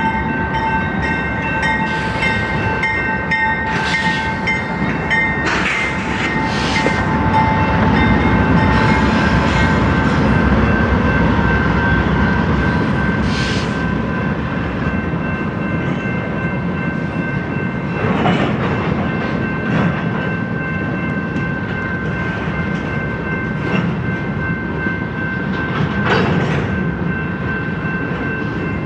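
Freight train rolling past with a steady rumble from its wheels and cars, sharp clanks every few seconds, and several steady high ringing tones.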